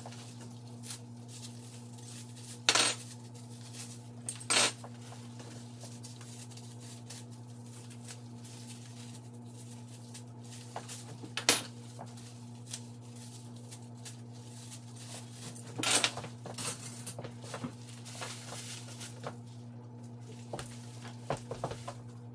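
Dishes and cutlery clinking and clattering as they are handled, in sharp separate knocks every few seconds, over a steady low hum.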